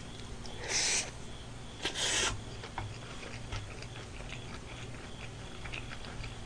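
A person chewing a big mouthful of griddle-fried dak-galbi with rice, with faint wet mouth clicks. Two short breathy hisses come about a second apart near the start.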